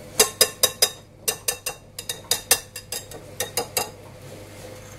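Wire balloon whisk clinking against a mixing bowl while stirring a thick quiche filling: a run of sharp, irregular clinks that stops about four seconds in.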